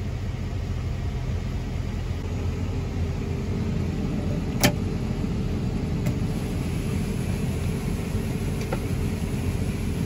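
Steady low engine rumble heard inside a tractor cab, running alongside a combine that is unloading corn into the grain cart. One sharp click about four and a half seconds in.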